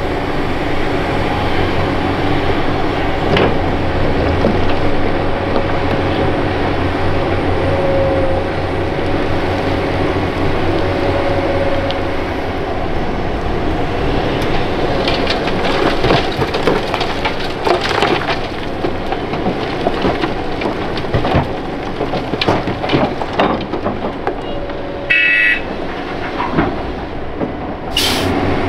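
Hitachi Zaxis 470 LCH excavator's diesel engine working under load with a steady whine, while dirt and stones clank and clatter into a steel truck body in the second half. A brief high squeal comes about three-quarters through, and a short sharp hiss near the end.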